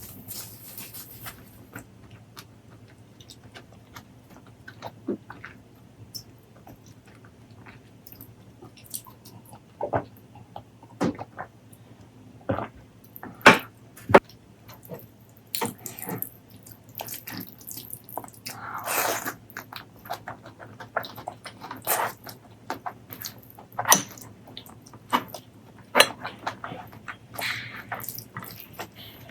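Close-miked eating sounds: wet chewing, lip smacks and sharp clicks at irregular intervals, with a longer wet noisy stretch a little past the middle.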